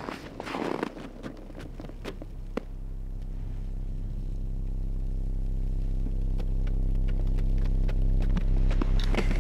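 A low, steady droning hum made of several even tones, slowly growing louder, with scattered light clicks and a brief rustling scrape about half a second in.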